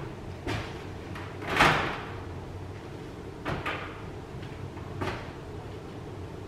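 Doors of a stacked front-loading washer and dryer being opened and shut: four short clunks and knocks, the loudest about a second and a half in.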